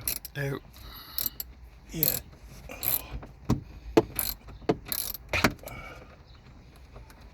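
Sun visor of a 2013 Nissan Pathfinder being worked by hand on its repaired hinge. A series of irregular sharp plastic clicks and knocks.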